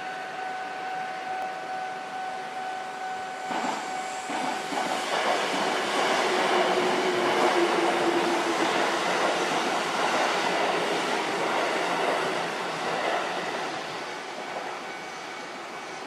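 Japanese level-crossing warning bell ringing steadily. Then a Sanyo Electric Railway 5030-series electric train passes over the crossing: its running noise builds from about four seconds in, is loudest between about six and twelve seconds, and dies away near the end.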